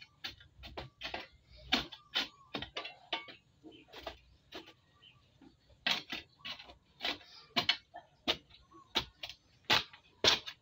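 A hoe chopping and scraping into dry, gritty soil in short, sharp, irregular strokes, about one or two a second.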